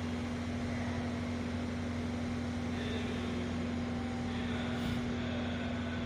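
A steady low hum with background hiss, with a few faint high tones coming and going in the second half.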